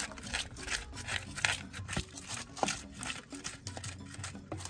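Pestle grinding green pepper in an apotoyiwa, a Ghanaian earthenware grinding bowl: a steady run of short rubbing, crushing strokes, about three a second.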